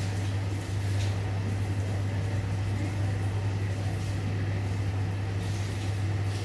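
A steady low hum at an even level throughout.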